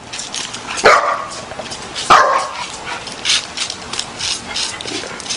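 A dog barks twice, loudly, about a second apart, over a run of quick, scratchy noises.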